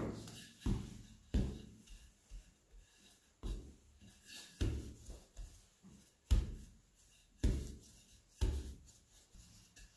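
Wooden rolling pin rolling out and tapping a slab of croissant dough, a dull thump with each stroke roughly once a second and soft rubbing between.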